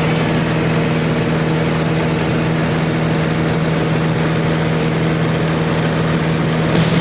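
Light aircraft's piston engine running at a steady speed, a constant propeller drone with a strong low hum.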